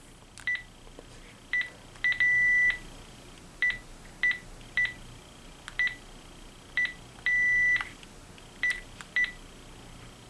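Panasonic DECT cordless phone handset keys being pressed one at a time, each press giving a short high beep with a small click, about a dozen in all at an uneven pace. A longer beep sounds twice, about two seconds in and again past the seventh second, like a confirmation tone.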